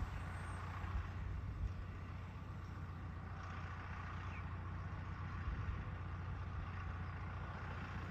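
A vehicle engine running steadily, heard as a low, even hum.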